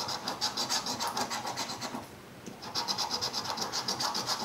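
A coin scratching the latex coating off a lottery scratch-off ticket in quick back-and-forth rasping strokes, several a second. It pauses briefly about two seconds in, then starts again.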